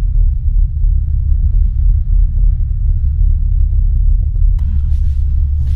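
Steady, loud low rumble of the Fast Cat M9 ferry's engines and hull under way at sea, heard inside the passenger cabin.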